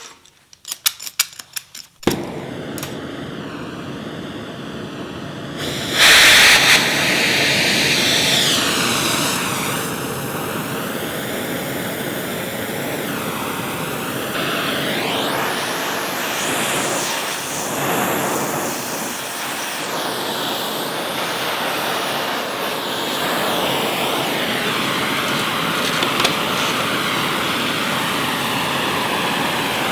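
Acetylene torch running with a steady, loud hissing rush, heating a hardened steel part cherry red to anneal it. A quick run of clicks comes first, the gas starts about two seconds in, and the flame jumps louder at about six seconds before holding steady.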